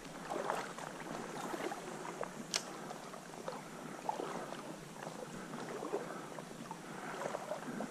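Shallow stream water sloshing and splashing in small, irregular bursts, with one sharp click about two and a half seconds in.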